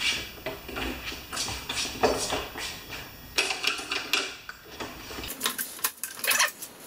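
Irregular metallic clanks and rattles from a stripped-down Craftsman snowblower body, its handlebars, control rods and transmission housing, as it is tipped and shifted on a wooden dolly. A quicker run of sharp clicks comes about five and a half seconds in.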